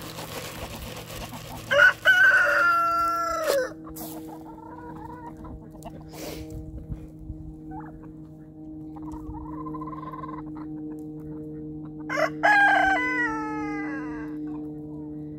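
A rooster crowing twice, once about two seconds in and again about twelve seconds in, each call long and falling away at the end, with softer hen clucking between.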